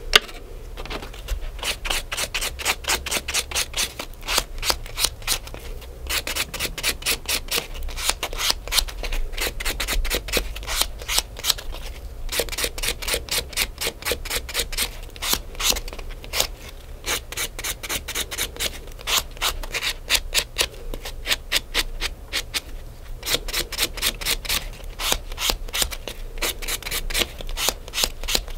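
A nail file filed back and forth across a fingernail in quick strokes, about four or five a second, in runs of a few seconds with brief pauses between them.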